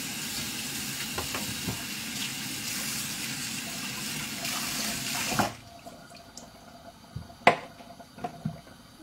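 Kitchen tap running in a steady rush for about five and a half seconds, then shut off abruptly. A sharp knock follows a couple of seconds later, then a softer one.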